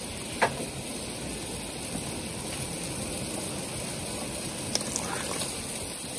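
Seasoned braising liquid simmering in an aluminium wok: a steady bubbling hiss, with one light click about half a second in.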